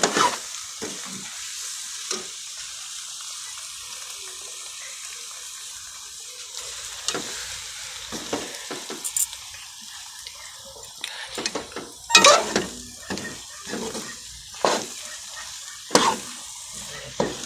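Spoon stirring and scraping a chicken and moringa mixture frying in a metal pan: a steady sizzle under irregular scrapes and knocks against the pan, which come more often in the second half, the loudest about twelve seconds in.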